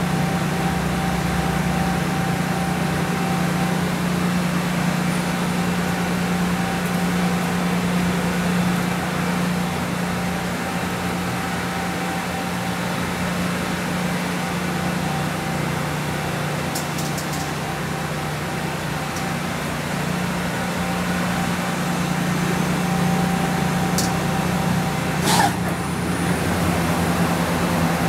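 Okuma Simulturn LU300M CNC lathe powered up, giving a steady low electrical and mechanical hum with a faint thin whine over it. Two sharp clicks come near the end.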